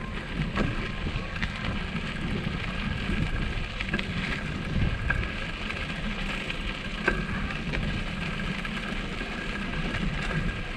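Bicycle riding over a rough dirt and stone trail: continuous crunching and rattling with scattered knocks.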